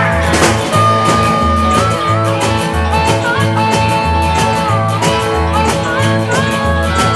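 Country band playing an instrumental break without singing. Upright bass and drums keep a steady two-beat rhythm under acoustic and electric guitar, and a lead melody of held notes bends up and down.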